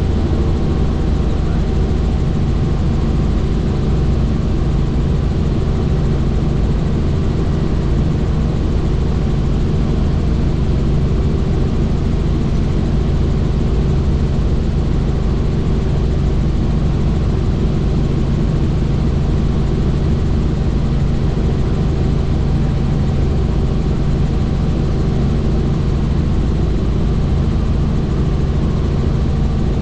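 Helicopter in flight: a steady, loud drone of rotor and engine, with a low hum of several held tones under a rushing noise.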